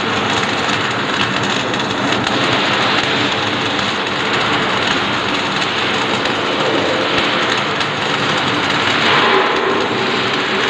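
Welding arc crackling and hissing steadily, with a faint steady hum beneath it.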